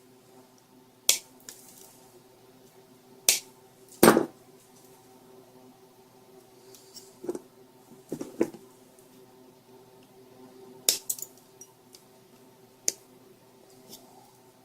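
Scattered small clicks and taps of tools and wires being handled while soldering the wires of a laptop charger plug, about nine sharp ones at uneven intervals, over a faint steady hum.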